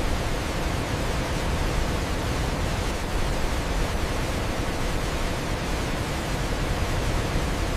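A waterfall rushing in a steady, dense roar of falling water, with no breaks or changes and weight in the low end.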